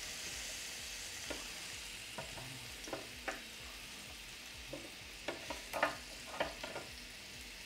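NY strip steaks sizzling steadily on the hot grill plate of a Ninja Foodi XL grill while they are turned halfway through cooking. Scattered short clicks and taps come from the tongs against the grill and the meat, more of them in the second half.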